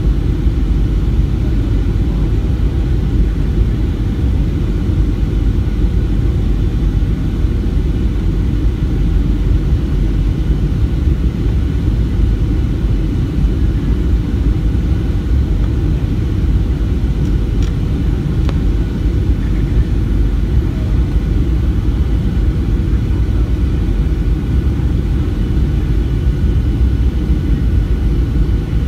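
Boeing 737-700 cabin noise heard from a window seat beside the wing and engine on the descent to landing: a steady, loud, deep rumble of the CFM56 engines and rushing air, with faint steady whining tones above it.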